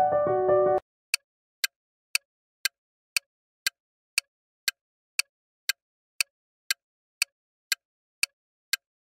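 A short electronic keyboard chime, then a countdown timer ticking steadily, about two sharp ticks a second.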